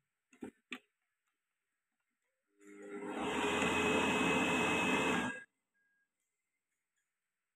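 Two plastic button clicks on a Tefal ActiFry air fryer's control panel, then its fan starts up, builds over about half a second into a steady whoosh, and cuts off about three seconds later.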